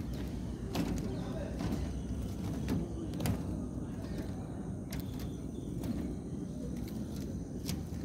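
Footsteps on a steel rebar mesh: scattered light clicks over a steady low noise.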